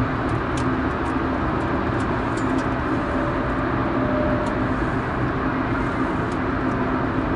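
First-generation Honda Insight's 1.0-litre three-cylinder engine running steadily, mixed with road and tyre noise, heard from inside the cabin.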